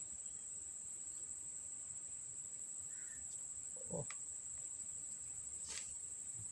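Steady, high-pitched drone of insects such as crickets, with a brief louder call about four seconds in and a short sharp swish about a second later.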